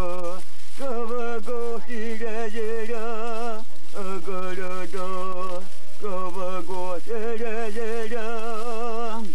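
A single voice chanting without accompaniment, in repeated phrases. Each phrase steps down through a few short notes and ends on a long held note with a wide vibrato, with brief breaths between phrases.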